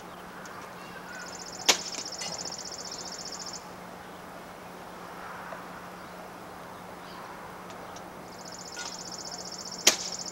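Film camera taking two pictures about eight seconds apart. Each is a sharp shutter click inside a high, whirring buzz of the motor winding the film on, lasting about two seconds.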